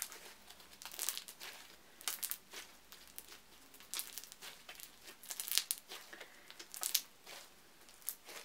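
Thick pink slime with foam beads being squished and stretched by hand, giving irregular crackles and small pops.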